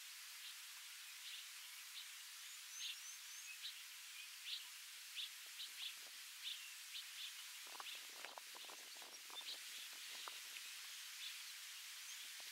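Faint bush ambience: a steady hiss with a bird giving short, repeated chirps, about two a second, and a few higher falling notes about two and a half seconds in. A low crackling rustle runs from about eight to ten seconds in.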